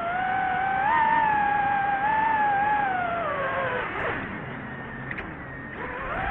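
DJI FPV drone's motors and propellers whining, the pitch wavering with the throttle; it drops away about four seconds in and climbs sharply again near the end.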